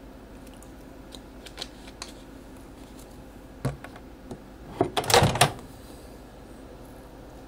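Handling noise from a glass mixing bowl on a kitchen counter: a few light clicks, a knock, then a short burst of clattering about five seconds in as the bowl is picked up and moved.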